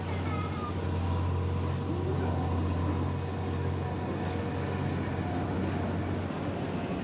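City street ambience: steady low rumble of road traffic, with faint voices from passers-by.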